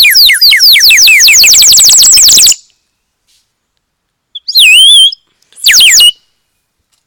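Water-filled bird-call whistle blown hard: a loud, fast trill of falling whistled notes, about eight a second, for nearly three seconds, then two short bubbling warbles.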